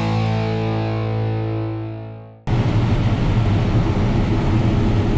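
A distorted electric guitar chord rings out and fades, then about halfway through it cuts off abruptly and the steady drone of a John Deere S690 combine running takes over.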